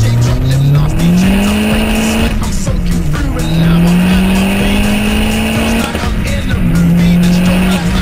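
Peugeot 207 RC's turbocharged 1.6 four-cylinder, breathing through a Milltek turbo-back exhaust with no resonator, pulling hard through the gears. The exhaust note rises, drops at a gear change about two seconds in, rises again, and drops at a second shift about six seconds in before holding steady.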